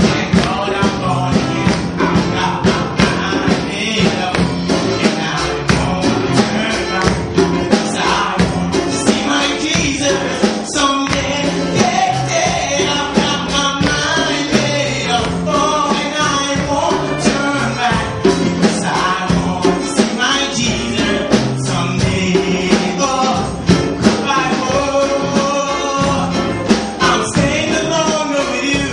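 Upbeat church gospel music with singing over a steady, driving beat.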